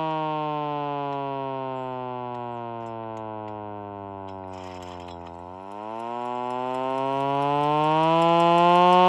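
Vixen Horns VXS-2000MTP hand-crank siren wailing. Its pitch and loudness fall slowly as the rotor winds down, bottoming out about five and a half seconds in. It then rises again as it is cranked back up to speed.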